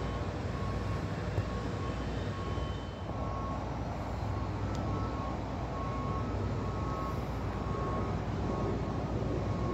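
Construction-site reversing alarm beeping, about three beeps every two seconds, over the steady low rumble of heavy plant engines.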